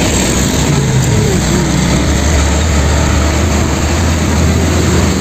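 A vehicle engine running steadily, with a deep low hum under a broad rushing noise.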